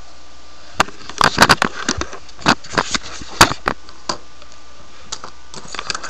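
Handling noise from a webcam microphone: a rapid, irregular run of sharp clicks and knocks, thickest between about one and four seconds in, with a few more near the end, over a steady background hiss.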